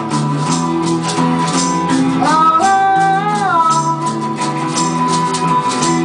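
A rock band playing an instrumental passage live: a sliding lead melody that glides up and back down twice, over sustained low notes and a steady shaker-like rhythm.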